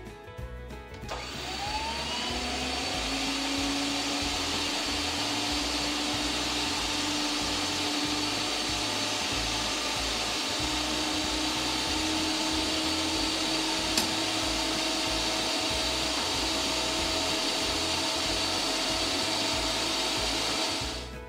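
Electric pipe-threading machine running steadily. Its motor spins up about a second in with a rising hum, holds a steady whir, and shuts off near the end, with a single click about two-thirds of the way through.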